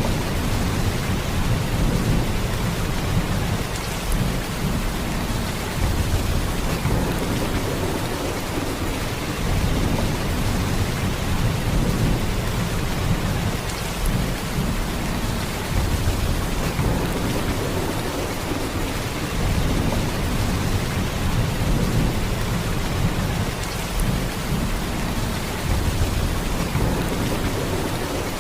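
Heavy rain in a steady downpour, a dense hiss with a deep low rumble underneath that swells and eases every few seconds.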